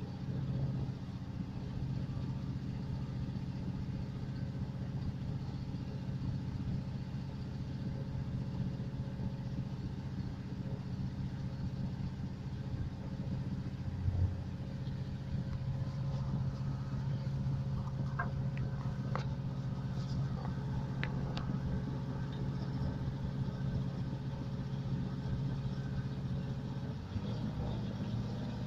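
Steady low hum of a TER regional train's running noise, heard from inside the passenger car. A brief low thump comes about halfway through, followed by a few faint clicks.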